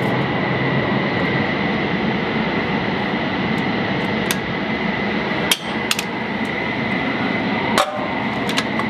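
Metal clicks and clanks from hands and a screwdriver working on a GAU-21 .50-caliber machine gun. The sharpest clanks come about five and a half, six and nearly eight seconds in. Under them runs a steady machinery noise with a constant high whine.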